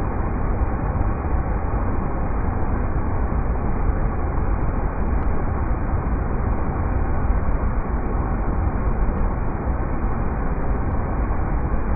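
River rapids rushing in a steady, unbroken wash of noise, deep and dull, with no highs.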